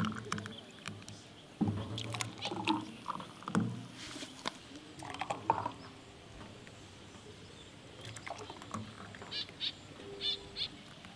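Birds calling in the background: a few short, low pitched calls in the first few seconds, then quick high chirps near the end.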